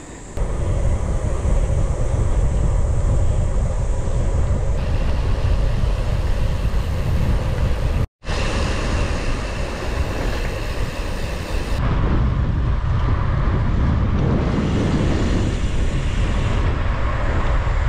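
Wind buffeting the microphone of a camera carried on a moving bicycle, a loud rumbling rush mixed with road noise. It drops out for an instant about eight seconds in and changes tone at several cuts.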